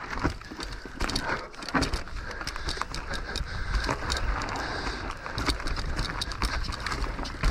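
Electric mountain bike riding down a forest trail: knobby tyres rolling over dirt, leaves and roots, with irregular clicks and knocks as the bike rattles over bumps, over a low rumble.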